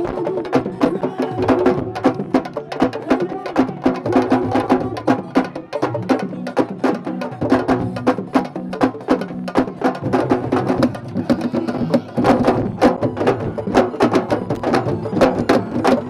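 Fast, dense sabar drumming, with sharp hand-and-stick strikes coming several times a second, driving the wrestlers' group dance.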